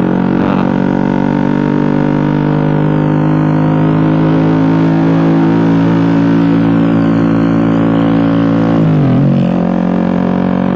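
Suzuki GSX-R150's single-cylinder engine through an SC Project-style aftermarket racing exhaust, cruising gently at about 50–60 km/h with a steady drone that climbs slowly in pitch. About nine seconds in the pitch dips sharply and then settles lower.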